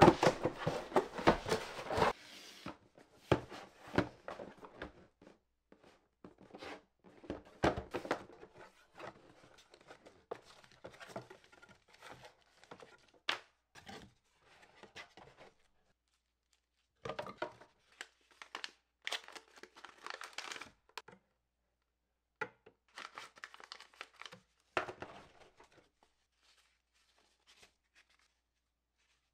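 Cardboard camera box being opened and unpacked: a long tearing rustle in the first two seconds, then paper and tissue wrapping crinkled and unfolded and cardboard inserts handled, in short bursts of rustling and light taps with brief pauses.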